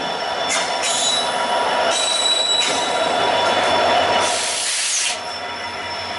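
WDP4D diesel-electric locomotive, with an EMD two-stroke V16 engine, passing close by on the next track, its engine running loud over rail and wheel noise, with a thin high whine in the first few seconds. The sound peaks as the locomotive goes by, about four to five seconds in, then drops as its coaches follow.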